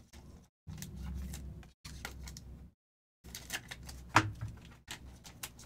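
Trading cards being handled and flipped near the microphone: rustling of card stock with sharp little clicks, in several short stretches that start and stop abruptly.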